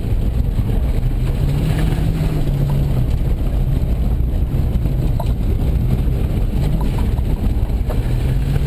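Car engine running under load with steady road and wind rumble, its pitch lifting briefly about two seconds in; a few faint ticks.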